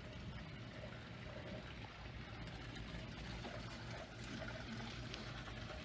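Dockside ambience: water lapping and trickling against a moored boat's hull over a steady low hum.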